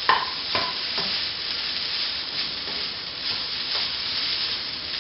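Quinoa and diced vegetables sizzling in a hot non-stick pan while a plastic spatula stirs and scrapes through them, with a few sharper scrapes against the pan near the start.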